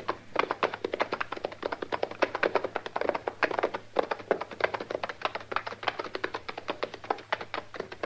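Radio-drama sound effect of horses' hoofbeats: a fast, continuous run of clopping knocks, several per second, as riders go down at a steady pace.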